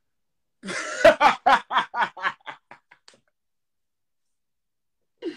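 A man laughing: a run of about ten quick, evenly spaced 'ha' pulses that fade out about three seconds in.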